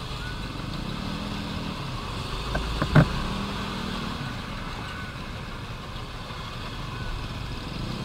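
Yamaha NMAX scooter's single-cylinder engine running at low speed, with other motorbike engines close by and a steady low road rumble. A single sharp knock about three seconds in.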